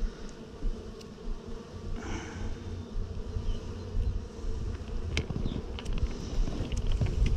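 A package of Saskatraz honeybees buzzing with a steady hum while the tin feeder can is slowly slid out of the package, with a few light clicks.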